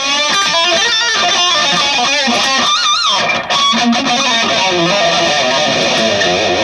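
Electric guitar playing a lead line, with notes bent and shaken in wide vibrato about three seconds in.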